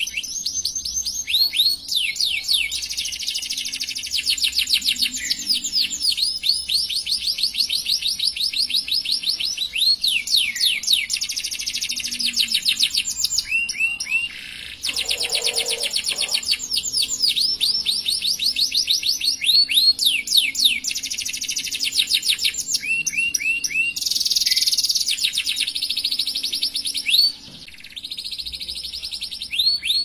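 Domestic canary singing a long, near-continuous song of fast trills: phrases of rapidly repeated high notes and quick sweeps follow one after another, with short breaks about halfway through and near the end.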